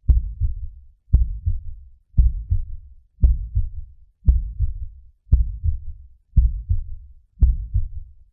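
Slow, heavy heartbeat-like thumps in the film's soundtrack, eight of them at about one a second. Each starts with a sharp knock and dies away in a low rumble.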